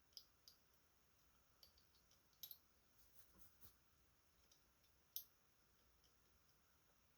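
Faint, scattered small clicks of a lock pick and tension wrench working the pins and sidebar sliders inside a Schlage Primus lock cylinder. The clicks come irregularly, about seven of them, with the sharpest about five seconds in.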